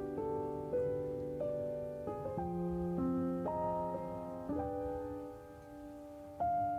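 Background piano music: a slow melody over sustained chords, with new notes struck every half second to second. It eases off toward the end, then a fresh chord comes in just before it ends.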